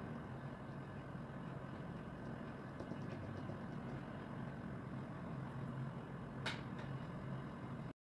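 Steady low background hum, with a few faint ticks about three seconds in and one sharper click about six and a half seconds in.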